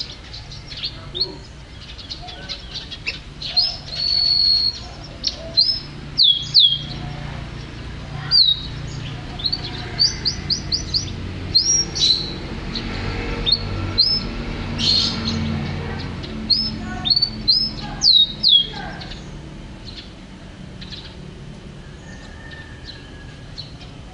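Domestic canary singing: quick clear whistled notes and short trills, with one held note about four seconds in. The song thins out over the last few seconds.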